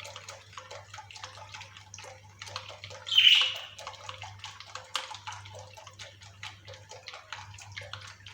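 Eggs and hot lemon-sugar syrup being stirred briskly in a bowl, the utensil clicking rapidly against the bowl with a wet sloshing. There is a louder scrape about three seconds in, over a steady low electrical hum.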